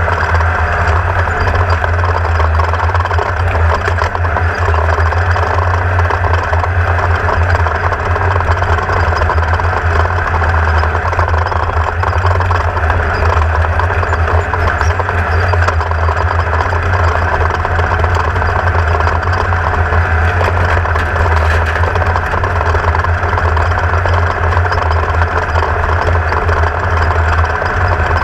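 Class 1600 off-road race car's engine running steadily, holding the same pitch throughout with no revving.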